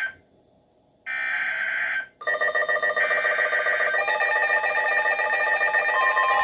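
Emergency Alert System header data burst, a harsh one-second electronic screech, about a second in. Just after two seconds a loud, rapidly pulsing multi-tone alert signal starts, and it grows fuller with added tones around four seconds.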